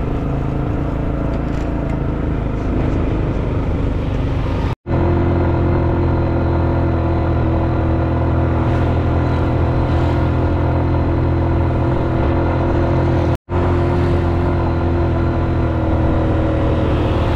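Engine of a motor vehicle running steadily while towing bicycles uphill on ropes. The sound cuts out completely for a moment twice, about 5 and 13 seconds in.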